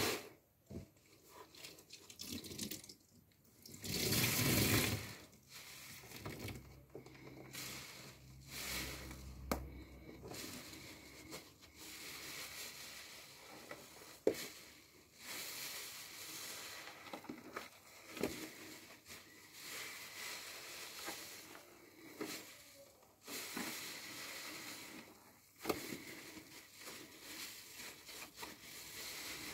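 A new car-wash sponge squeezed, pressed and wrung by hand in foamy detergent water: irregular wet squelches and squishes of water and suds, with a longer, louder squelch about four seconds in.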